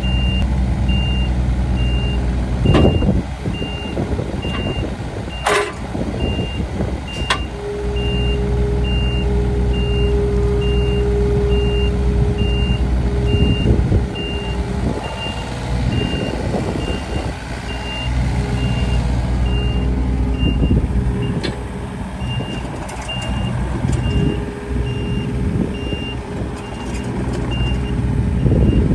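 Komatsu PC35MR-2 mini excavator's diesel engine running while its boom, arm and bucket are worked, with a steady hydraulic whine held for several seconds near the middle and a few sharp metallic clanks in the first eight seconds. A high beeping alarm repeats evenly through most of it.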